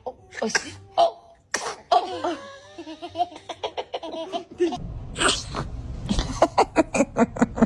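A baby sneezing, with laughter around it.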